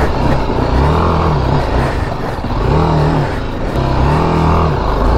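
BMW G310GS single-cylinder motorcycle engine revving in surges, rising and falling in pitch about three times, as the bike climbs a steep dirt slope.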